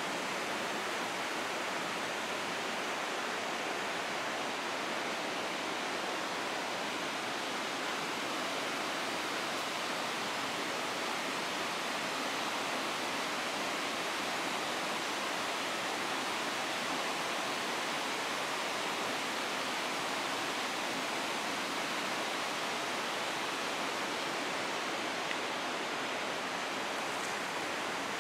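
A river rushing steadily, an even wash of water noise with no other events.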